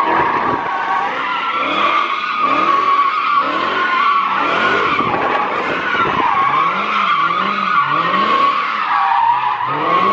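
Tires squealing without a break as a Dodge Challenger Hellcat slides through a drift with traction control off, its supercharged V8 revving up and down about once a second.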